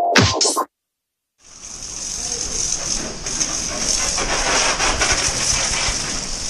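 Music with a beat cuts off, then after a short silence a pressure-washer jet hiss fades in and runs steadily as it sprays a motorcycle.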